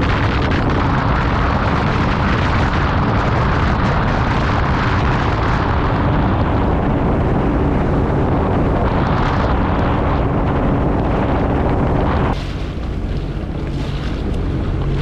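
Sea-Doo FishPro jet ski running under way: a steady engine drone buried in heavy wind rush on the microphone and water noise. A little past twelve seconds in the noise drops suddenly to a lower level.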